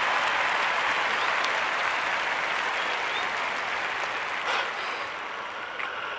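Audience applauding steadily, slowly dying away.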